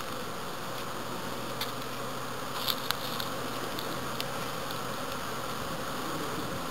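Honeybees buzzing in flight around the entrances of wooden hives, a steady hum. A few brief clicks come through it near the middle.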